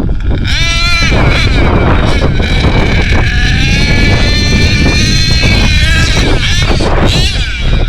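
HPI Savage X4.6 nitro RC monster truck's small nitro engine revving hard at high pitch. It climbs sharply about half a second in, holds high for several seconds, drops back and picks up again near the end.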